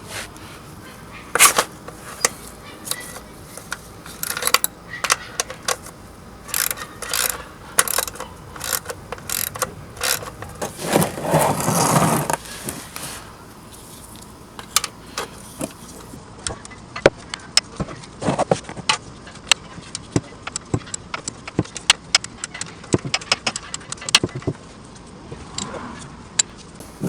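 Ratchet and 17 mm socket working the oil drain plug of a 2007 Suzuki GSX-R 600: a run of sharp, irregular metallic clicks and clinks, with a short rushing noise about eleven seconds in.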